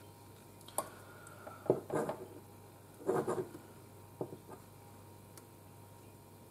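Handling noise from a small painted bust and its plinth being turned in the hands: a few light knocks and rubs, with a short run of scraping about three seconds in.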